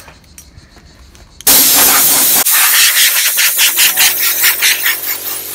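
Compressed air hissing from the blow gun of a Nu-Air Super Squirrel portable mini compressor, blasting dust out of an outdoor air-conditioning unit's condenser fins. The blast starts suddenly about a second and a half in. From about four seconds in, a steady hum from the compressor's motor joins under the hiss.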